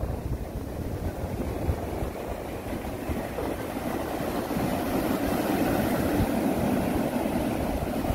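Ocean surf breaking and washing up a sandy beach: a steady rushing with a deep rumble, swelling a little over the last few seconds.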